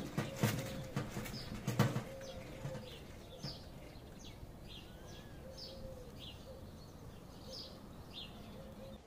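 A few sharp knocks in the first two seconds, then small birds chirping repeatedly with short, high, falling notes.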